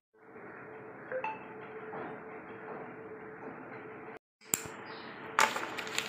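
Steady background hiss with a faint, even hum, broken by a brief dropout a little after four seconds. Sharp light clinks come about a second in, and louder ones come near the end.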